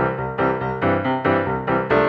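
Background music: a keyboard melody with notes struck at a steady, even pace, each note fading before the next.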